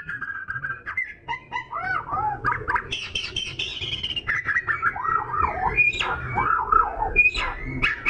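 Oriental magpie-robin singing a continuous, varied song of whistled notes, quick up-and-down slurred phrases and short sharp notes.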